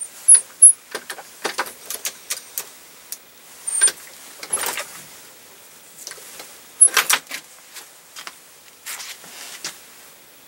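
Shotshell reloading press being worked by hand: a run of metal clicks, clacks and short scrapes with a few brief metallic pings, the loudest clack about seven seconds in, as a 20 gauge shell is crimped.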